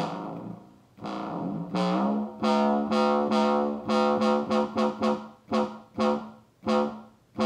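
Pocket Operator PO-32 Tonic drum-synth voice playing a buzzy pitched tone while it is being tuned. Its pitch slides up about two seconds in, then it is retriggered as a run of short repeated notes, about two to three a second.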